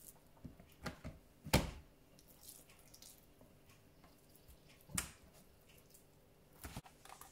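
Slices of raw corned beef dropped one by one into a plastic tub: a handful of short wet slaps and taps with quiet between them, the loudest about one and a half seconds in.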